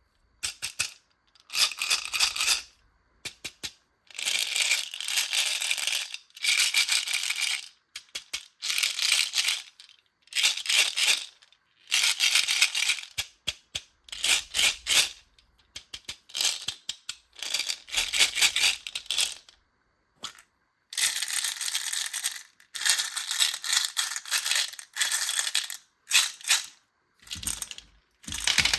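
Tiny micro beads pouring and sliding in a rush of fine, dense rattling, coming in bursts of a second or two with brief silences between them.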